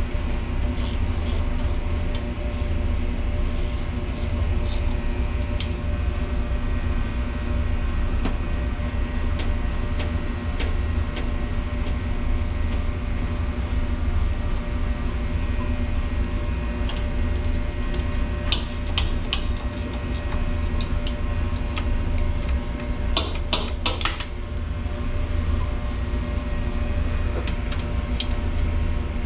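Steady low machinery rumble and hum, with a few short runs of sharp metallic clicks from a ratchet wrench torquing down the bolts on a commercial dishwasher's new motor.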